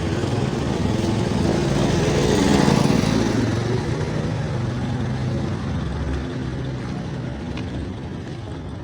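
Vehicle engine running, swelling to a peak about three seconds in and then slowly fading.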